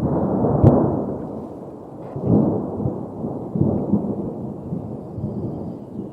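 Thunder rumbling in a storm. It is loudest about half a second in, where there is a short sharp crack, and it swells again at about two and a half and four seconds.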